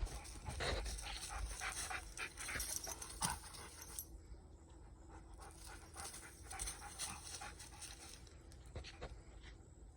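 Pit bull panting, with a rustle of leafy branches and small snapping clicks over the first few seconds, quieter after that.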